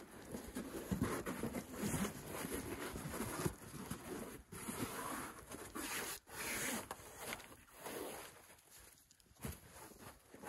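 Fabric rustling and rubbing in irregular bursts as a large dark sheet is spread out and smoothed over dry grass.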